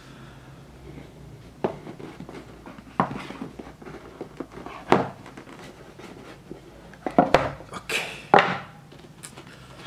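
Packaging and a small TV box being handled: scattered knocks, clicks and rustles as it is worked out of its box, with a louder cluster near the end.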